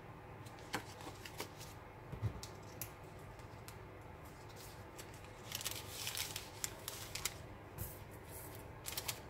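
Paper rustling and small taps as layered paper tags are handled and the thick pages of a handmade journal are turned, with a busier stretch of rustling a little past halfway.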